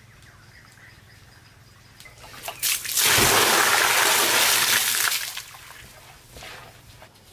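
Water poured from a clay pot, splashing onto the hard floor of an empty pool basin. A loud rush of about two seconds starts some three seconds in, then dies away into trickling and small splashes.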